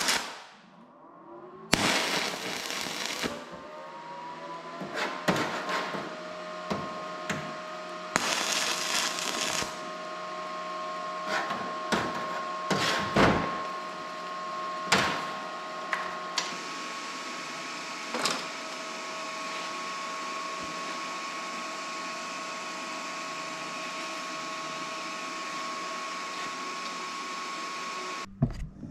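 Arc welding on steel: two short stretches of loud arc hiss, about two seconds in and again around eight seconds in, over a steady motor hum that rises in pitch over the first few seconds and then holds. Scattered metal knocks and taps between them.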